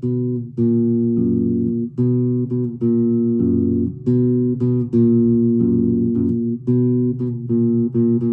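Bass guitar being plucked note by note in a short riff that repeats about every two seconds. Each note rings on until the next one is played.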